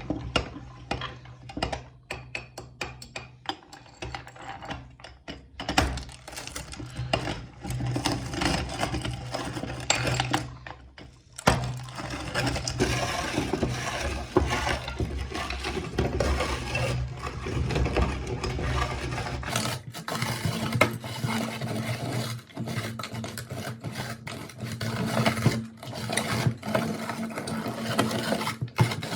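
Electric meat grinder running with a steady motor hum while hard lollipop candy cracks and crunches in the auger, giving dense irregular crackling and clicks. The motor's hum shifts to a higher pitch about two-thirds of the way through.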